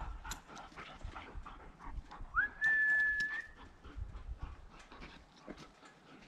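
Loose sled dogs moving about, with light scattered clicks and rustles. About two and a half seconds in comes one high, whistle-like tone that slides briefly upward and is then held steady for about a second; it is the loudest sound.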